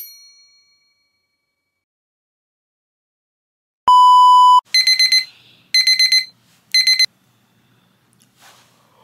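Electronic alarm going off: one long beep, then three quick bursts of rapid high-pitched beeps, the classic wake-up alarm pattern.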